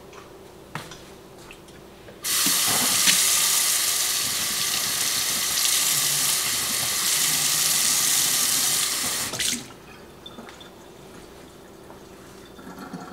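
Kitchen tap running into a stainless steel kettle, filling it with water. The flow starts suddenly about two seconds in and is shut off about seven seconds later.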